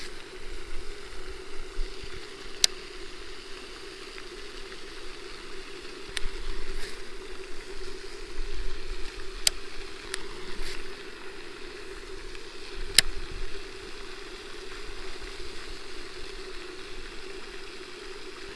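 Steady splashing hiss of a pond's spray fountain, with wind rumbling on the microphone. Four sharp, short clicks from the baitcasting reel as the angler casts and works the lure.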